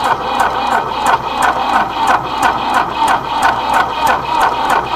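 1976 White 1270 tractor's diesel engine being cranked over by its freshly rebuilt electric starter, not catching. A steady rhythmic chugging of compression strokes, about three to four pulses a second, on a cold engine that has just been re-primed with fuel.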